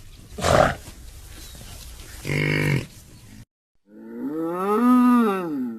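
Torosaurus sound-effect calls, a designed dinosaur voice: a short noisy call about half a second in, a brief low pitched call a little after two seconds, then after a short silence a long call of about two seconds that rises and then falls in pitch.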